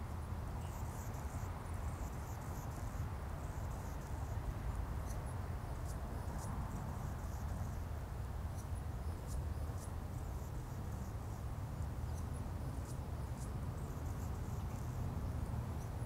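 Outdoor ambience by a wetland pond: a steady low rumble with scattered faint, short, high-pitched chirps and ticks.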